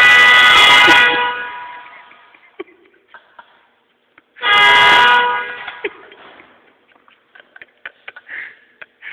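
Car horn sounding in two loud blasts wired to the ignition, so it goes off when the key is turned. The first blast is already going at the start and the second comes about four seconds in; each lasts about a second and then trails off. Faint clicks and rustling follow near the end.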